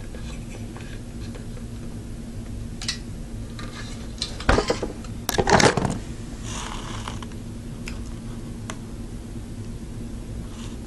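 Metal CPU cooler parts handled on a desk: a cluster of clicks and clinks about four to six seconds in, over a steady low hum.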